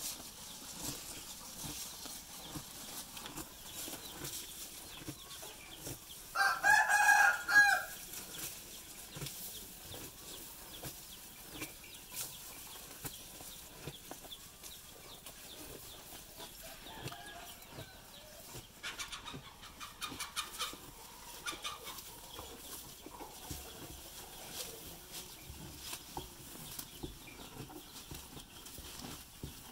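A rooster crows once about six seconds in, the loudest sound, with fainter clucking later on. Under it runs soft, irregular crunching from a cow munching grass at its trough.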